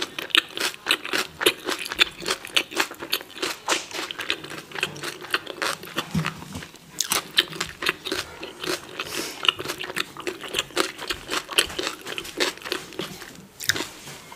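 Close-miked chewing of a mouthful of taco roll (a soft tortilla wrap): a steady run of crisp, wet mouth clicks, several a second.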